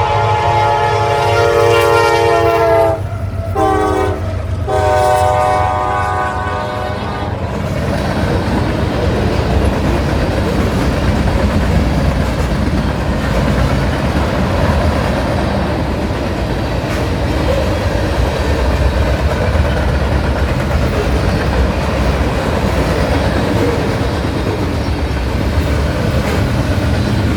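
CSX locomotive's multi-note air horn sounding at a grade crossing: the end of a long blast, a short blast, then a final long blast that stops about seven seconds in. The train then rumbles past with wheels clacking over the rail joints.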